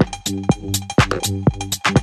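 Electronic dance music with a steady drum-machine beat over repeating synth notes.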